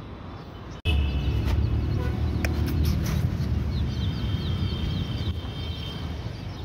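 Young chicks peeping: runs of short, high, falling peeps, over a steady low rumble.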